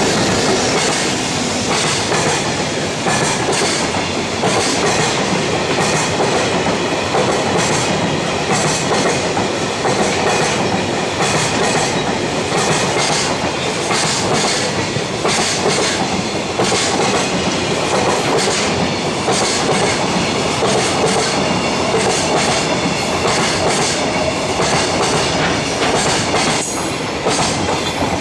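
Long train of Koki container flat wagons rolling past at speed: a steady rumble with wheels clacking in a running rhythm over rail joints. The last wagons clear near the end.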